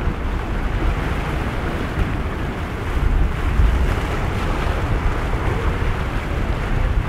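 Wind buffeting the microphone over the wash of waves and surf, a steady loud rushing with a heavy low rumble and no distinct engine tone.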